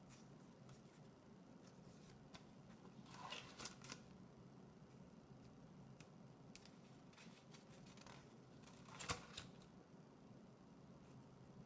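Pages of a spiral-bound sketchbook turned by hand: two short rustles of stiff, paint-covered paper, about three seconds in and about nine seconds in, the second louder, with faint scattered ticks between them.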